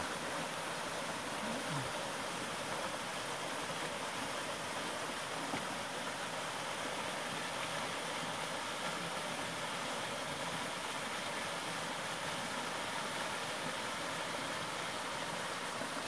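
A waterfall's steady, even rush of falling water.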